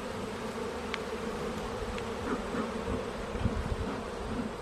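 A colony of honeybees buzzing around an opened hive, a steady droning hum, with a few low bumps in the second half.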